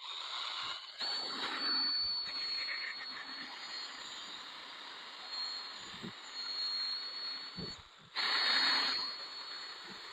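Power polisher with a high motor whine, buffing a hazy headlight lens with heavy-duty cutting compound. It stops briefly twice and restarts, the second time about 8 seconds in.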